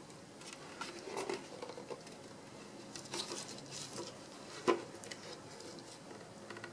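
Handling noise from a plastic modem router being turned over in the hands: light scrapes, rubs and clicks in short clusters, with one sharper knock a little past halfway.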